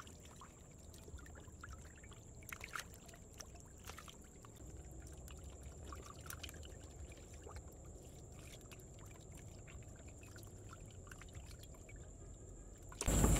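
Faint water trickling and sloshing, with scattered small splashes and clicks from fish moving in shallow muddy water. A sudden loud rush of noise cuts in near the end.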